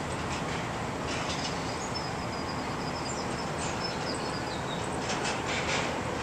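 Steady airport ramp noise from jet aircraft at the gates, with a faint thin whine in the middle that drifts slightly down in pitch.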